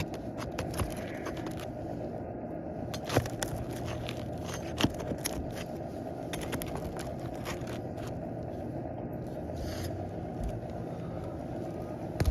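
Scattered scrapes and clicks of asphalt shingles being worked loose on a roof, over a steady low rumble.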